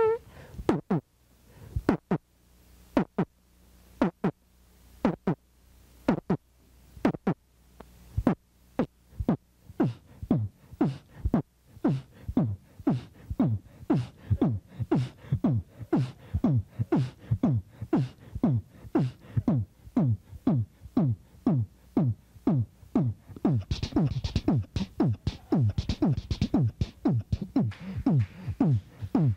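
Human beatboxing into a microphone: kick-drum-like mouth thumps, each dropping in pitch, about one a second at first, then speeding up to a steady beat of two or more a second, with hissy snare or hi-hat sounds joining near the end.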